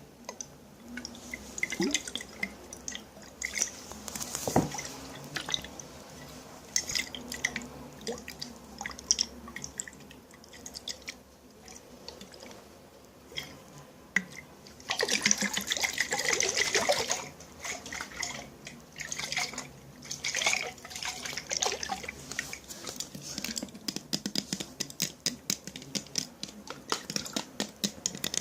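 Water being handled in a container for ASMR: scattered drips and small splashes, with a denser stretch of liquid sound lasting a couple of seconds about halfway through.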